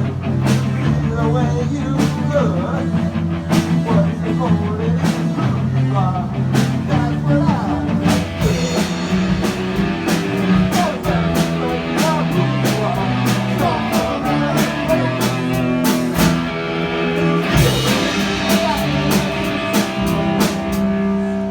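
Rock music with a drum kit, bass and guitar playing a driving song.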